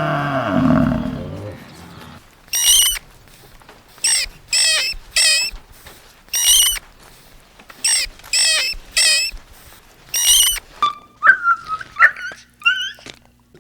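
A deep animal roar trailing off in the first two seconds, then a string of short, harsh, high-pitched squawks, some in quick pairs, followed by a few short whistled chirps near the end.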